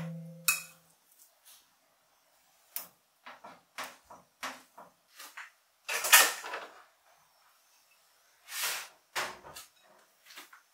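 A series of short clatters, knocks and rustles from things being handled, like cupboard doors or drawers and objects set down, spaced irregularly with quiet gaps between them. The loudest comes about six seconds in and another about nine seconds in.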